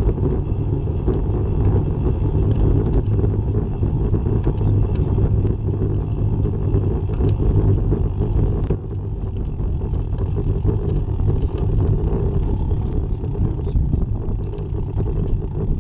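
Steady wind rushing over the microphone of a camera mounted on a moving bicycle, heavy and low, with faint scattered ticks.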